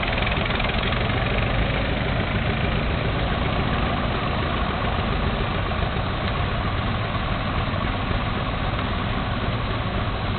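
Several early vintage cars and a truck, Ford Model T-style, rolling slowly past one after another, their engines running steadily at low speed.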